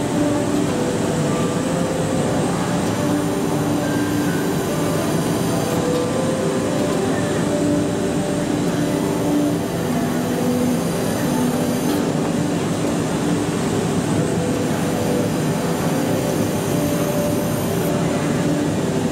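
Steady din of a busy hall: many overlapping distant voices over continuous machine noise, with no single sound standing out.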